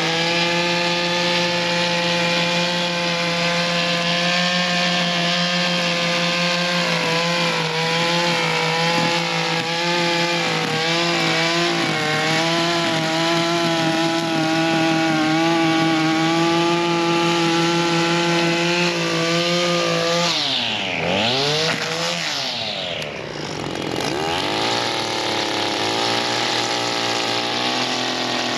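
Echo SRM-266T string trimmer's two-stroke engine, running on its newly replaced carburetor, held at high revs with the pitch wavering. About 20 seconds in the throttle is let off, blipped back up once, then released again, and the engine drops to a lower steady run.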